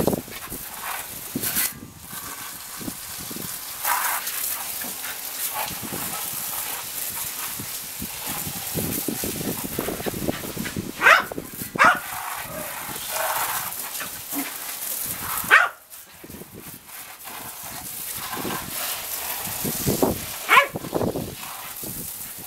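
A Welsh corgi barks and yips as it chases a garden-hose spray, with a few sharp barks near the middle and one near the end. The steady hiss and splatter of the hose water on concrete and plant pots runs underneath.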